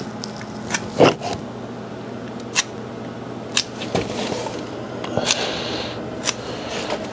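Scattered light clicks and taps with some scratchy rustling from handling work at the base of a wood-framed stud wall, the loudest tap about a second in, over a steady low hum.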